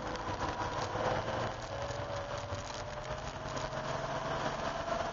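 The air-cooled flat-six of a 1988 Porsche 911, heard inside the cabin, running at low revs; its note dips and then slowly rises again as the car slows for a bend and accelerates out. Under it is a steady hiss of tyres and spray on the rain-soaked track.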